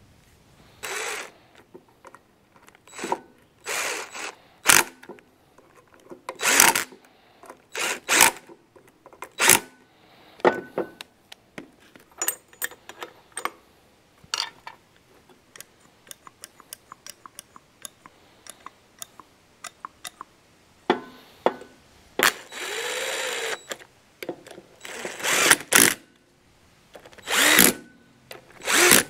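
Cordless drill/driver running in repeated short bursts, driving the cover screws into a truck's air relay valve, with a longer run in the last third whose pitch sags under load. Light clicks of small metal parts being handled come in between.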